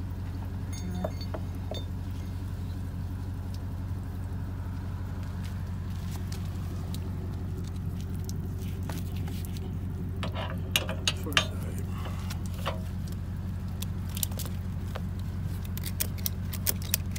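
Metal clinks and clicks of a boat trailer strap's hook and buckle being handled, loudest in a quick run of three clicks about ten to eleven seconds in, with more near the end. Under them runs the steady low hum of an idling vehicle engine.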